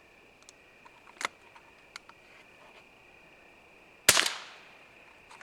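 .22 LR gunshots: a smaller sharp crack about a second in, then a much louder crack about four seconds in with an echo trailing off.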